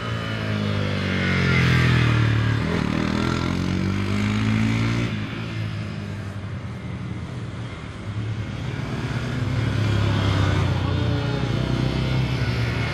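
Bajaj Pulsar N125's air-cooled 125cc single-cylinder engine being ridden hard on a tight track. Its pitch drops as the bike slows for a corner about two seconds in, then climbs as the throttle opens. It rises again later on.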